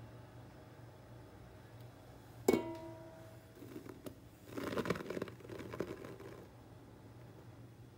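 A sharp metallic knock against the stainless-steel mixing bowl rings out briefly about two and a half seconds in. Then the sifted flour mixture pours and patters into the bowl for a few seconds.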